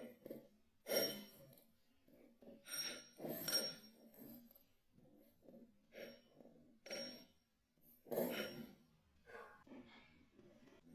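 Kinetic sand being squished and crumbling in a string of soft, gritty bursts, each under a second, spaced a second or two apart.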